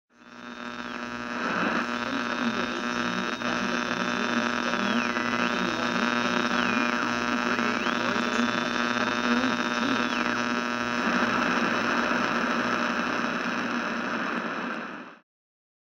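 Dark droning intro soundtrack: a dense, steady hum over a regular low pulse, with a high tone that dips in pitch and climbs back several times. It cuts off suddenly near the end.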